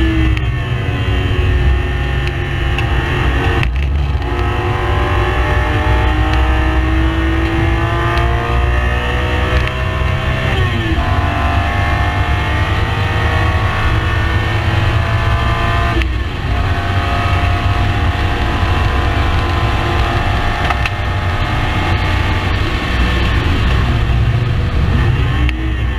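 Race car engine running hard on track, its note climbing and falling with several brief breaks as gears change, about four, eleven and sixteen seconds in and again near the end, over a steady low rumble.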